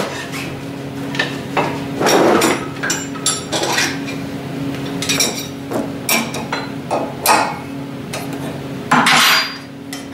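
Metal clinking and clanking as a table saw blade is handled and changed for a dado blade, in irregular sharp knocks, over a steady hum.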